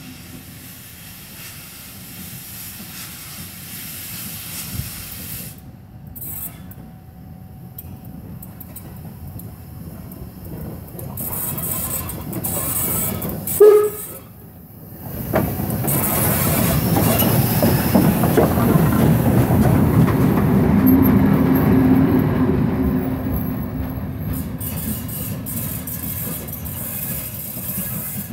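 Steam locomotive 50 3501, a DR class 50 engine, rolling along the depot track with steam hissing and the train running on the rails. The sound builds as it approaches, is loudest as it passes, and fades as it moves away, with one short sharp sound a little before halfway.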